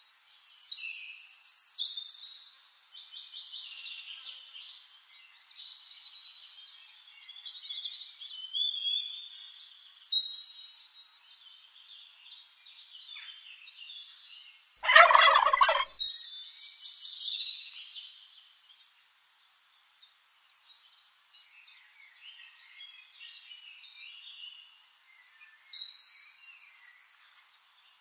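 Wild turkey tom gobbling once, loud and harsh, about halfway through, over a steady run of short, high chirping bird calls.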